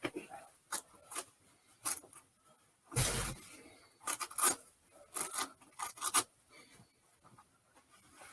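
Fursuit pieces being handled: fabric and faux fur rubbing and rustling in a series of short scrapes, with one longer, louder scrape about three seconds in.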